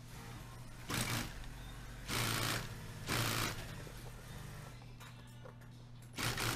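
Industrial sewing machine stitching in four short bursts, each under half a second, over a steady low hum.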